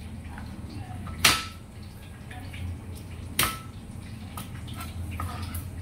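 Knife knocking sharply twice on a plastic cutting board, about two seconds apart, with small ticks of garlic cloves being peeled and handled between the knocks.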